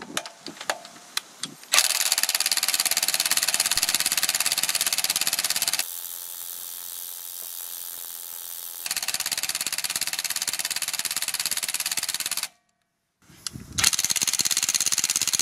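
Ryobi One+ 18 V cordless impact wrench hammering rapidly on a car wheel nut tightened to 173 Nm, on its lowest power setting. It runs in several long bursts, quieter for a few seconds in the middle, with a few clicks before the first burst.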